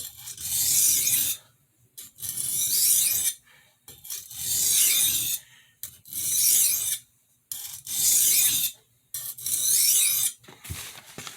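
Steel blade of a 6-inch kitchen utility knife being drawn across a finishing whetstone with very light pressure: six even scraping strokes, each about a second and a half long with short pauses between. This is the final refining stage of sharpening.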